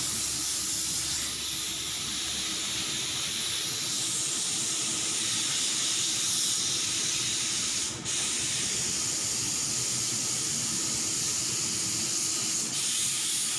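Steady, loud hiss with no clear pitch, strongest in the high range, with a brief dip about eight seconds in.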